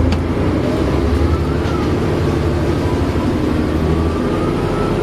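Volvo Olympian double-decker bus engine running under way, a steady low drone, with a faint whine slowly rising in pitch in the second half.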